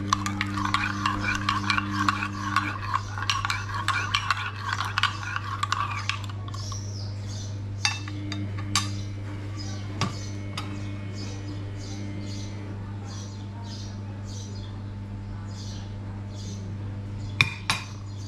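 Metal teaspoon stirring coffee in a ceramic cup, clinking rapidly against the sides for about six seconds, then only a few single clinks of spoon on cup and saucer. A steady low hum runs underneath.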